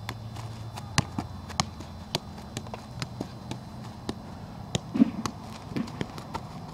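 A soccer ball being tapped and flicked with the feet on grass during a freestyle trick: a string of light, irregular taps, a few every second.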